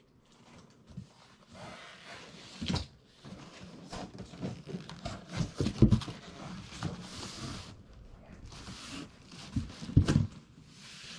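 Packaging of a dehumidifier being handled during unboxing: irregular rustling and scraping, with louder knocks about 6 and 10 seconds in.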